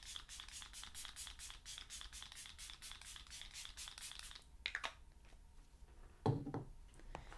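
Makeup setting spray misting the face from a pump bottle: a quick run of short hissing sprays, about seven or eight a second, for roughly four seconds, followed by a click and a soft knock.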